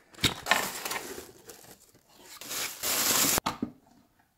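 A cardboard appliance box being opened: a tape seal peeled off, then cardboard and packaging rustling and crinkling. The rustling grows louder and stops abruptly about three and a half seconds in.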